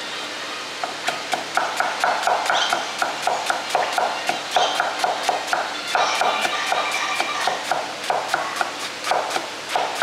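Chinese cleaver chopping jicama on a round wooden chopping block: quick, regular knocks of the blade striking the wood, about three to four a second, starting a little under a second in, as the slices are cut into thin strips.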